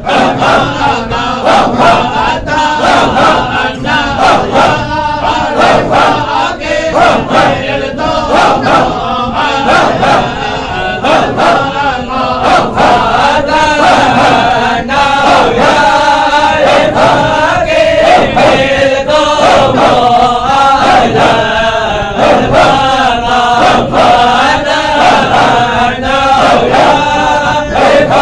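A group of men chanting together in a halara, the rhythmic standing devotional chant of a mawlid gathering, with one man leading. The chant goes in a steady repeating rhythm with frequent sharp accents.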